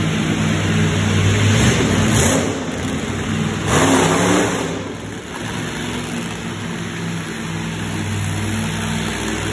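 Monster truck engines running and revving across the arena floor, with two louder surges of revving about two and four seconds in.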